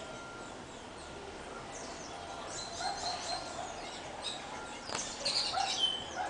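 Wild birds chirping in many short, quick, high notes, busiest about three seconds in and again near the end, with a single sharp click about five seconds in.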